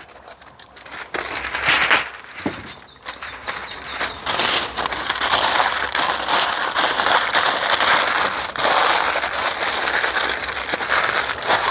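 Parchment paper and plastic wrap crinkling and rustling as smoked fish is wrapped up by hand: scattered crackles at first, then steadier, louder crinkling from about four seconds in.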